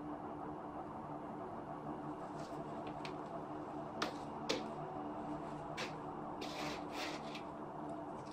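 Hands handling small objects, with two sharp clicks about four seconds in and a short rustle a couple of seconds later, over a steady low hum.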